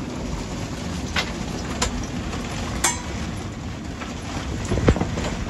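Steady low rumble of storm wind around a sailboat, with three sharp clicks or knocks in the first three seconds and a heavier thump near the end.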